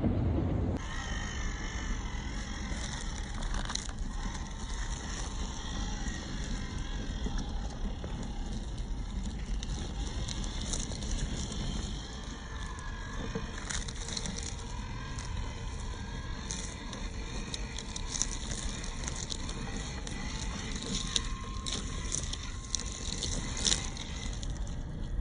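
RC crawler truck's electric motor and gearbox whining, its pitch wavering with the throttle, while its six tyres crunch over dry leaves, twigs and loose dirt with scattered small clicks and crackles.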